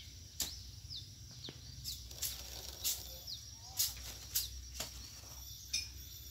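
Steady high-pitched trill of crickets, with sharp short chirps falling in pitch every half second or so and a low hum underneath.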